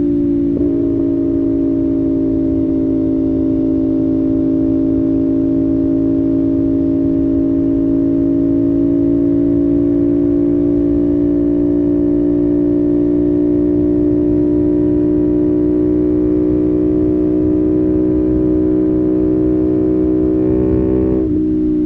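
CFMOTO 450SS's parallel-twin engine holding a steady high-rpm drone at cruising speed, its pitch rising slightly and easing back. Near the end the note briefly drops and picks up again, as in a gear change.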